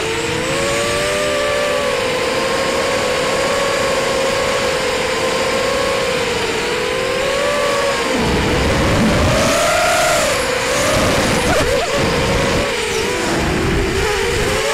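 Electric motors and 5-inch propellers of an FPV racing quadcopter (T-Motor 1806 2300kv on 4S), heard from the onboard camera. The motors whine at several close pitches that rise and fall with throttle. Wind buffets the microphone in gusts around the middle.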